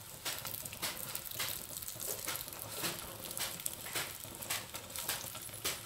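Stuffed bell peppers frying in a little oil in a nonstick pan: a steady sizzle with frequent irregular crackles and pops, and a knife tapping and scraping as the peppers are turned.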